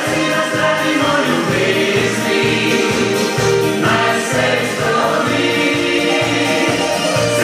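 Recorded pop duet song playing: singing voices over a steady bass beat and backing instruments.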